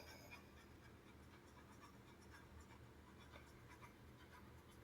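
Near silence: faint room tone with a low hum and a few scattered faint ticks.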